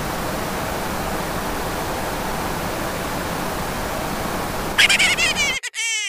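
Steady hiss of tape-style static. About five seconds in it breaks into a short burst of warbling, squealing glitch tones, then cuts off suddenly.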